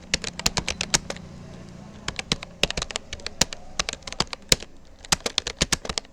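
Keystrokes on a Rapoo computer keyboard during touch typing: rapid, irregular clicks in quick runs, with a short pause about a second in.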